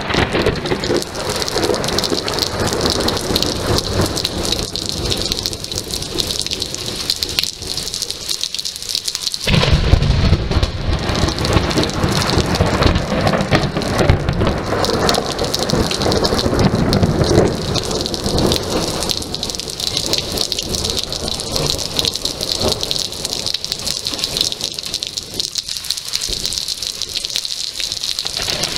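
Heavy rain falling steadily. About nine seconds in, thunder breaks suddenly and rumbles for several seconds before easing back to the rain.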